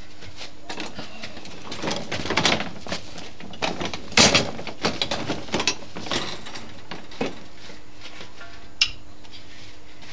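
A shovel scraping and crunching into a pile of soil, several uneven scoops in the middle of the stretch, with soil tipped into a wheelbarrow; a single sharp click near the end.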